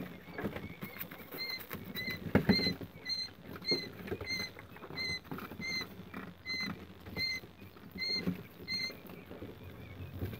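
Week-old quail chicks peeping: a steady run of short, high peeps, about two a second, that stops near the end. Under it is soft rustling and pecking in straw.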